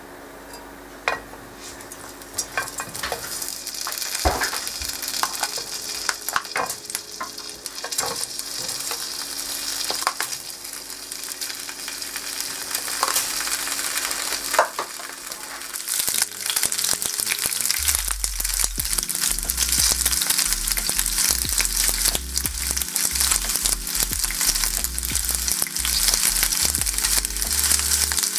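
Shell pasta frying in oil in a non-stick pan, sizzling, with a wooden spatula stirring and clicking against the pan. The sizzle gets louder about halfway through.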